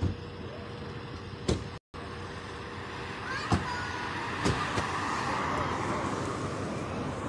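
A car drives past on the road, its tyre and engine noise swelling in the second half and easing off near the end, over steady outdoor background noise. A few sharp knocks, and the sound drops out for an instant near two seconds in.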